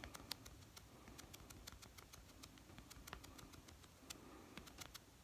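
Near silence with faint, irregular light clicks and taps, several a second, as a makeup sponge is dabbed on the skin around the upper lip.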